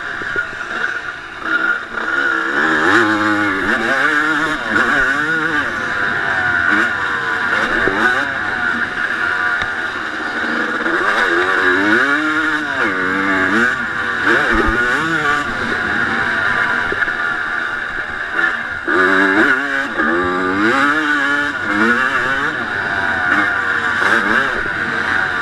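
1989 Honda CR250's single-cylinder two-stroke engine at race pace, revving up and easing off again and again, its pitch climbing and dropping several times through the gears, heard from on the bike.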